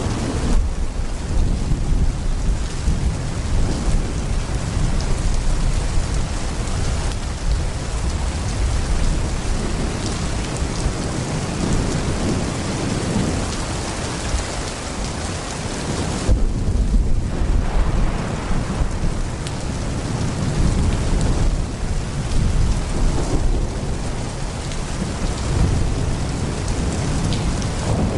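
Heavy rain pouring steadily, with low rolling thunder that swells and fades several times underneath it.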